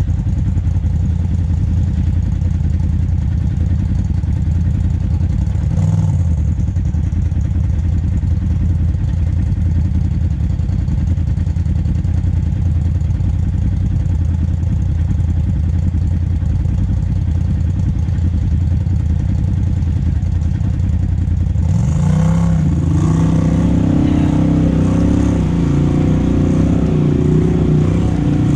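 Polaris RZR side-by-side engine running at low revs as the machine crawls up a rocky trail. About twenty seconds in the sound changes and the engine revs rise and fall over and over to the end.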